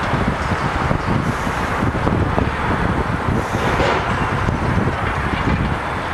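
Steady outdoor rumble of wind buffeting the microphone over distant traffic and heavy demolition machinery, with two brief hissy swells in the middle.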